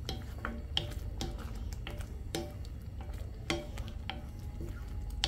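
A wooden spatula stirring a thick pea-and-potato curry in a stainless steel kadai, with irregular light knocks and scrapes against the pan, about two a second, each ringing briefly off the steel.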